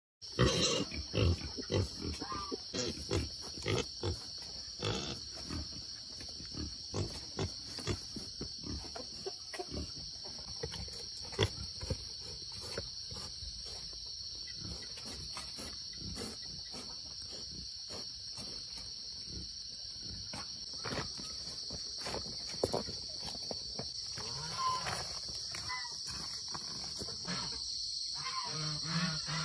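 Wild boar grunting, loudest and most frequent in the first few seconds, with scattered knocks and rustles, over a steady high-pitched insect drone.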